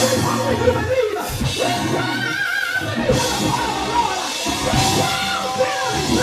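Live gospel praise-break music from a church band with a drum kit, loud and driving, with voices singing over it, one holding a long note near the end.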